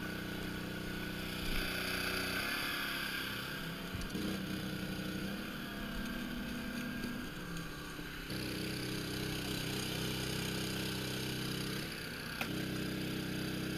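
Engine on an electric-fishing boat running steadily. Its tone changes about two and a half seconds in and returns to the first tone about eight seconds in.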